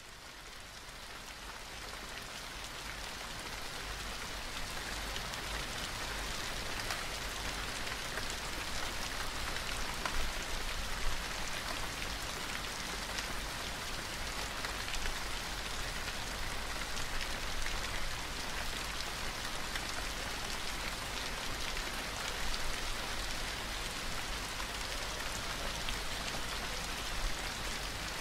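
Recorded rain falling steadily: an even hiss with scattered drop ticks, fading in over the first few seconds and then holding level.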